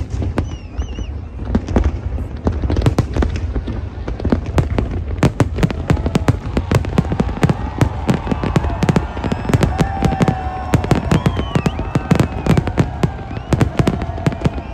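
Aerial fireworks bursting in a dense run of sharp bangs and crackles over a low rumble, coming thicker and faster from about five seconds in.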